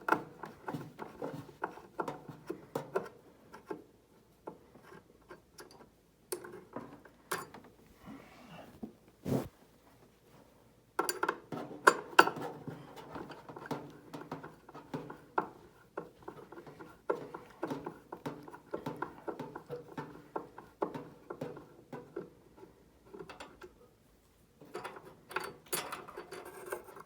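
Hand tool working on the metal parts of a space heater: irregular clicks, clinks and scrapes in bursts, with a busier stretch of rattling in the second half.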